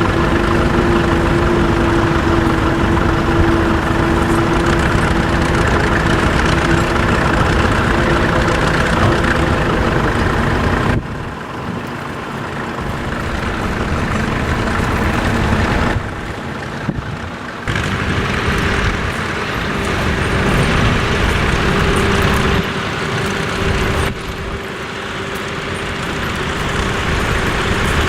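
Tractor engine running steadily. The sound changes abruptly and drops in level several times.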